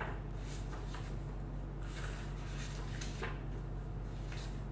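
Soft rustling and brushing of paper pages as a booklet is leafed through, a few faint strokes over a low steady hum.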